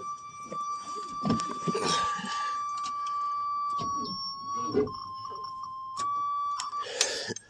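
The 1985 Chevrolet Suburban's dashboard warning buzzer sounds one steady high tone. Its pitch wavers slightly about four seconds in, and it cuts off shortly before the end. Clicks and rustling from handling at the door jamb sound under it.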